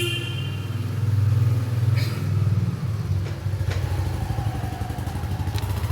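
Motorcycle engine running steadily nearby, with a few sharp metallic clicks.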